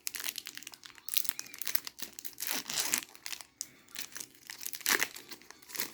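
Foil wrapper of a Pokémon booster pack crinkling and being torn open, heard as irregular crackles that come in louder spells.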